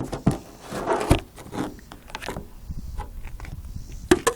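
Handling noise: irregular rustling, clicks and knocks as tape is worked onto the recording camera, with a sharper knock or two near the end.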